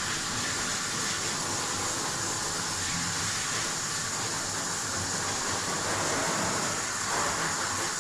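Steady rushing hiss from the equipment of a self-service dog-wash station, running without a break.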